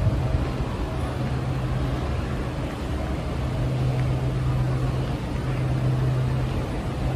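A vehicle running steadily: a constant low engine hum over an even rushing noise, cut off abruptly at the end.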